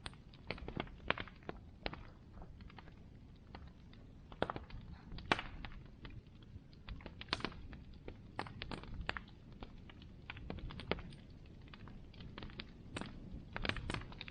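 Bonfire crackling: wood snapping and popping in quick irregular clicks, a few louder pops standing out, over a low steady rumble from the fire.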